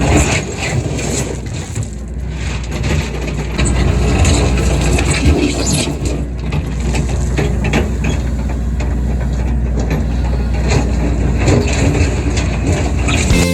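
Excavator engine running under load while its bucket scrapes and spreads coarse gravel, with a steady crunch and clatter of stones.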